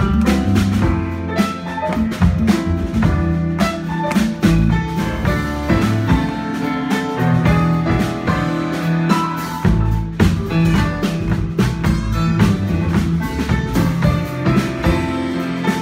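A small acoustic band playing live: grand piano with acoustic guitar and upright double bass, in a busy passage full of quick note attacks.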